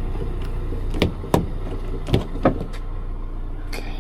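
Four sharp clicks and clunks of a car's door and lock being worked, over a steady low vehicle engine hum.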